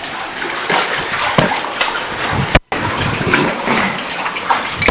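Seawater sloshing and splashing among granite boulders in a rock grotto, with a few knocks from the handheld camcorder. The sound cuts out completely for a moment about two and a half seconds in.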